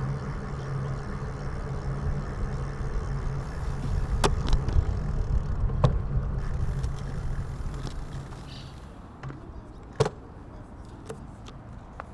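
A motor vehicle's engine runs with a steady low hum, then dies away about eight seconds in. Several sharp clicks and knocks are heard, the loudest about ten seconds in.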